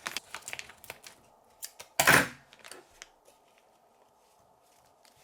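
Small handling noises from hands working a toy bath-bomb kit: scattered light clicks and rustles, with one louder rustle about two seconds in.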